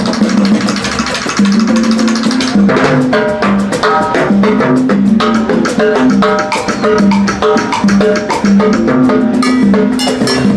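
A band playing: drum kit and percussion keeping a steady beat under a moving bass line and higher pitched instrument notes.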